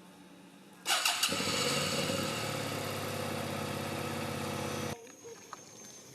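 A small engine starting with a sudden loud catch about a second in. It runs steadily for about four seconds, then cuts off abruptly.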